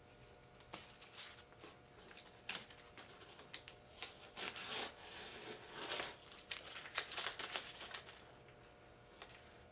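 Blue masking tape being peeled off the painted plastic hull of a model and crumpled in the hand: a run of faint, uneven rustling and tearing sounds, busiest from about four to eight seconds in.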